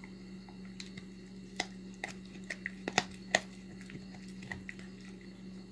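Puppy chewing on a rawhide chew: irregular small clicks and crunches of teeth on the rawhide, with the loudest cluster around the middle.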